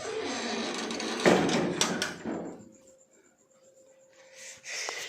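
Rustling and knocking as a cover is pulled over a washing machine and fastened, with a sharp knock about a second in; the handling stops about two and a half seconds in.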